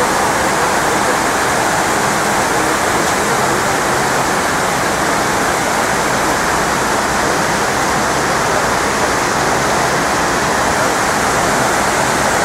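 Steady rush of water from the 9/11 Memorial's North Pool waterfall, water pouring down the pool's walls in an even, unbroken roar of noise.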